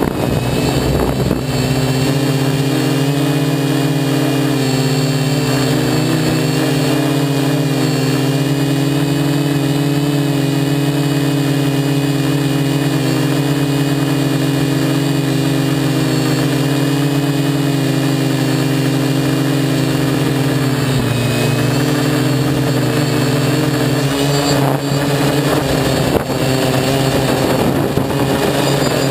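DJI F450 quadcopter's DJI 2212/920kv brushless motors and 10x4.5-inch props humming steadily in flight, heard from a camera on the frame right beside the spinning props. The pitch wavers slightly with throttle and dips briefly about two-thirds of the way through.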